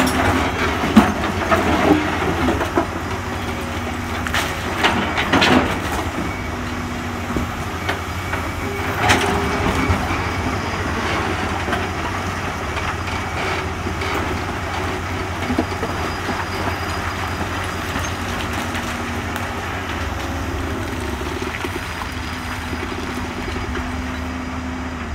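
Komatsu PC200 excavator's diesel engine running steadily under load as the bucket digs into loose quarry rock. Rocks knock and clatter against the bucket and each other during the first few seconds and again about nine seconds in.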